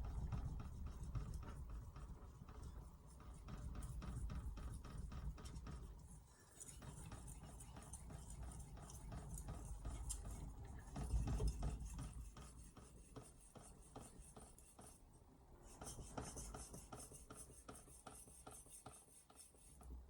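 Carbon-steel kitchen knife being stroked back and forth on a wet 5000-grit Altstone RIN splash-and-go whetstone: a faint, even rasping scrape, stroke after stroke, as the stone moves plenty of steel.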